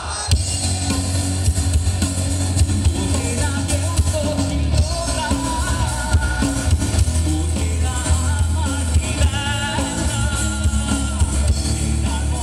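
Live rock band playing at full volume: electric guitar, bass and drum kit under a male lead singer. The whole band comes in hard just after the start after a brief quieter moment.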